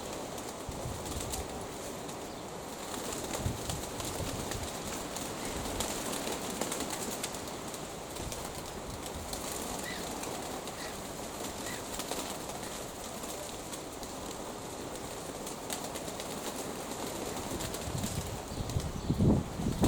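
Pigeons cooing and flapping their wings in strong wind, with the wind buffeting the microphone; a louder buffet near the end.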